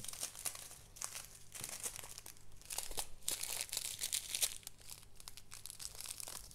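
Small clear plastic bags of diamond-painting drills crinkling and rustling as hands sort through a pile of them, in an irregular run of crackles.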